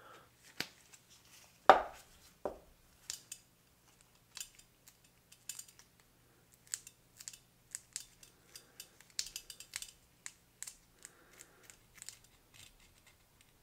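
Scattered light clicks and taps from gloved hands handling a small metal diecast truck part and tools on a workbench, with a sharper knock a little under two seconds in.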